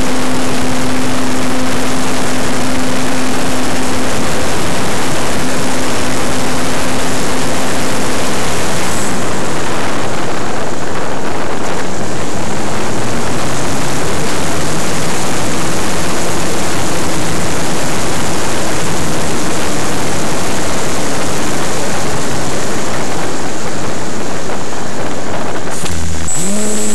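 Motor and propeller of a radio-controlled T-28 Trojan model airplane, heard from a camera mounted on the plane, under heavy wind rush. A steady motor tone drops away about a third of the way through, the pitch then wavers while the plane climbs, and a new steady tone sets in near the end.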